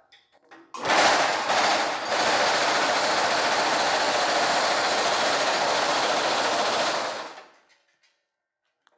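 Reciprocating power hammer running steadily while it shapes a sheet of woven stainless steel mesh. It starts about a second in, then winds down and stops well before the end.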